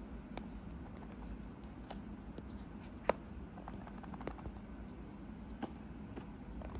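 Fingers handling a small cardboard AirPods 3 box: scattered light taps and clicks, the sharpest about three seconds in, over a low steady hum.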